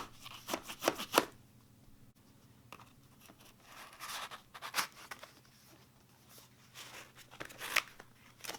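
Knife cutting open a cardboard delivery parcel: sharp scrapes and knocks, with a longer tearing rasp about four seconds in and more cardboard handling near the end.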